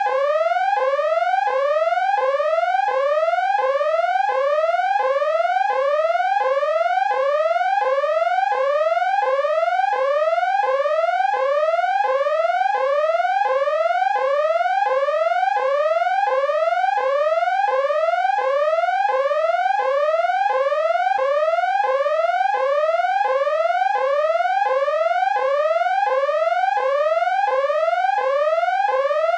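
Electronic danger-alarm tone: a rapid rising whoop, a synthetic sweep upward in pitch, repeated evenly about three times every two seconds without a break.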